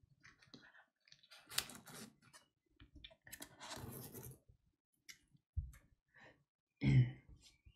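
Trading cards being handled and gathered up: scattered small clicks and a rustle of cards sliding over one another, then two dull thumps near the end, the second the louder.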